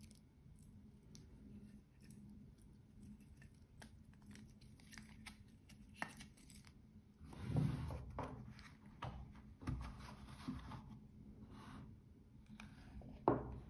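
Hands handling a watch with a metal mesh bracelet and its paper tag, and fitting it onto its cushion in a presentation box: light rustles and clicks, a louder scraping rustle about seven seconds in, and a sharp knock near the end.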